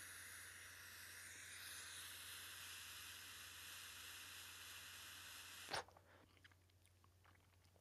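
Faint, steady hiss of a long inhalation drawn through the mouthpiece of an Urbanleaf Mini portable dry-herb vaporizer, ending with a short click near the six-second mark as the lips come off the mouthpiece, followed by silence.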